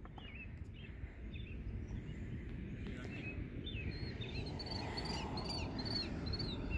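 Birds chirping in short, repeated calls, more of them in the second half, over a steady low rumble.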